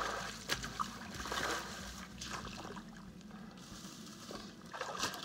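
Shallow water sloshing and splashing around wading boots as wooden stakes are shoved into a beaver channel's bottom, in a few short separate splashes.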